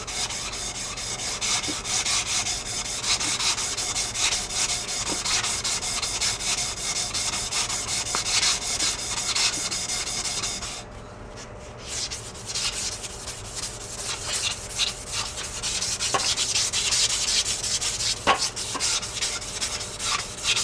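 A strip of 240-grit abrasive is pulled back and forth around a steel crankshaft journal of a 1941 Farmall A engine, a rhythmic scratchy rubbing. It stops for about a second near the middle, then starts again. The journal is being lightly polished to knock off high spots before new bearings go on.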